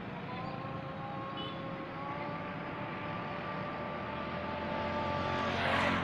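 A motor vehicle's engine running with a steady note that climbs slowly in pitch. A louder rush of road noise comes as it passes close near the end.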